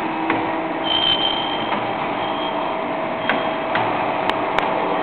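A servo-driven CNC wire and pipe bending machine running, giving a steady mechanical hum. A high whine comes and goes about a second in, a lower steady tone holds from about two seconds on, and several sharp clicks fall through it.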